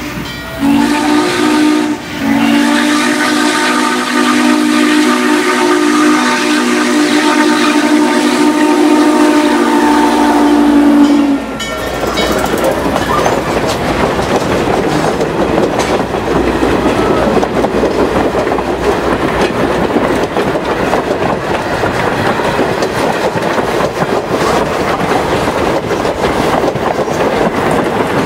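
Norfolk and Western 611, a Class J 4-8-4 steam locomotive, blowing its steam whistle in blasts: a short one, then one held for about nine seconds that cuts off sharply. Then the engine and its string of passenger cars roll close by, their wheels clicking over the rail joints.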